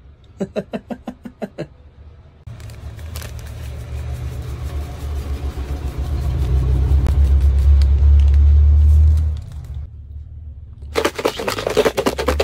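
Sinigang seasoning powder pouring from a rustling plastic packet onto French fries in a plastic cup, under a low rumble that grows louder and cuts off about nine seconds in. About eleven seconds in, a fast, loud rattle starts as the fries are shaken hard in the plastic cup.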